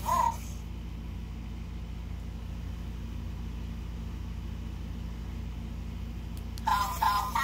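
Room air conditioner humming steadily. A knockoff Furby toy's electronic voice chirps briefly at the start and starts up again near the end in a sing-song pattern.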